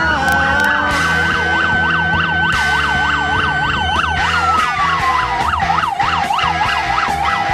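Several electronic vehicle sirens sounding together: one holds a high steady note that slides down about four seconds in, while another yelps rapidly, about three sweeps a second.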